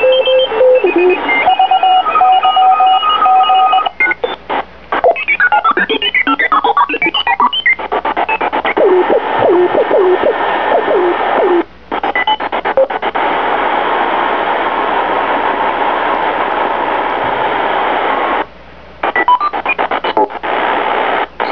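Sony ICF-2002 shortwave receiver being tuned through stations with its tuning buttons: steady whistling tones, clicks and warbling squeals, then a long stretch of hiss, broken by several abrupt short mutes as the tuning steps.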